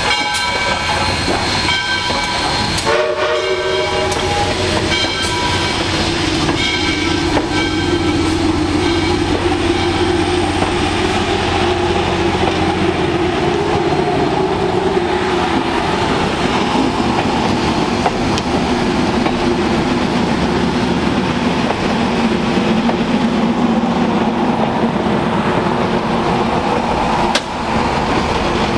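A steam-hauled passenger train's steel wheels roll past on the rails with a steady rumble. High, wavering squeals ring out through the first several seconds. The sound then fades slowly as the train draws away.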